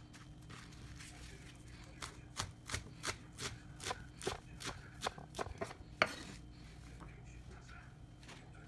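Kitchen knife chopping on a cutting board: a run of sharp strokes, about three a second, starting about two seconds in and stopping about six seconds in, with the last stroke the loudest.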